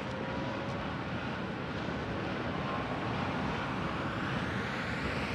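Renault Twizy electric quadricycle on the move, a steady rush of road and wind noise. From about halfway through, a high motor whine rises steadily in pitch.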